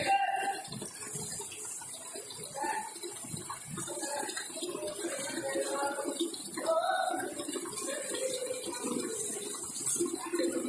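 Water splashing and trickling in a bucket as something is washed by hand, an irregular sloshing with no steady rhythm.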